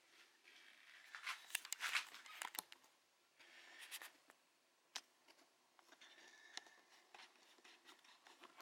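Faint rustling and light clicks from hands handling a cloth face mask and its packaging. There is a quick cluster of sharp rustles about a second in and a single sharp click about halfway through.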